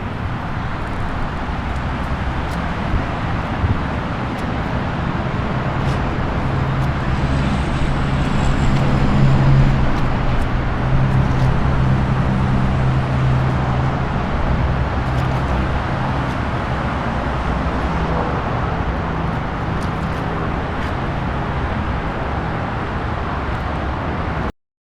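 Steady, loud roar of rushing noise with a low hum underneath that swells around the middle, cutting off suddenly near the end.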